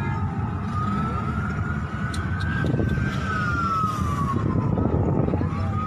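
Emergency vehicle siren wailing in a slow rise and fall: it climbs for about two seconds, slides down for nearly three, and starts to climb again near the end, over a low rumble of traffic.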